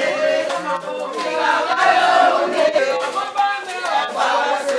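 A group of people chanting together, several voices overlapping in a continuous sound.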